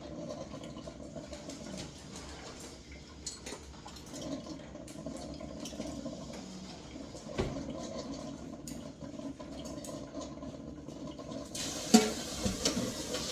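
Water running from a kitchen tap, with light clinks of dishes. A little before the end the flow gets louder and hissier, and there is one sharp clack.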